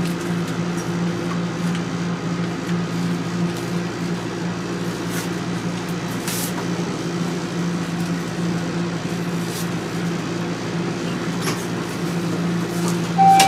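Steady electrical and ventilation hum inside a Toronto Rocket subway car, with faint rustling and clicks from passengers crowded at the doors. A short electronic tone sounds right at the end.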